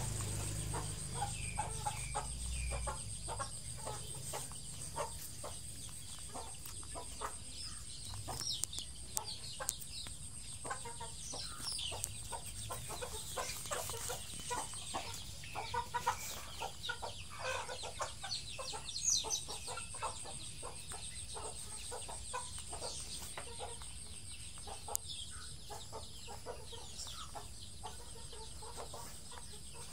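Chickens clucking off and on in an irregular stream of short calls, with short high chirps here and there and a faint steady high whine.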